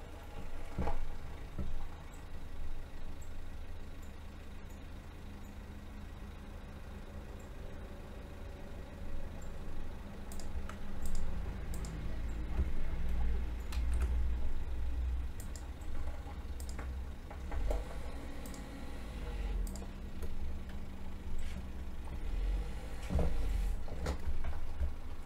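Low, uneven background rumble with scattered clicks of a computer keyboard and mouse.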